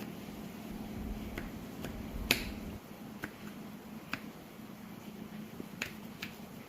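Scattered sharp clicks and taps, about six in all, the loudest a little over two seconds in, over a faint steady low hum.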